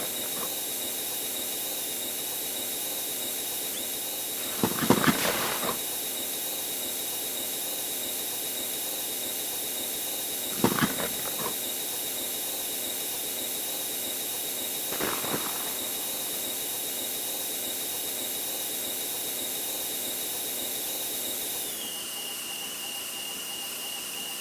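Airplane cabin and jet engine noise sped up by fast-forwarding: a steady high-pitched whine over hiss, with a few short louder bursts about 5, 11 and 15 seconds in. Near the end the whine steps down to a lower pitch.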